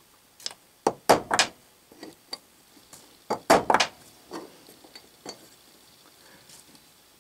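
Irregular sharp metallic taps and clicks, some in quick pairs, as a small steel transfer punch is set into the holes of a steel index plate and tapped to mark hole positions onto a blank plate beneath it.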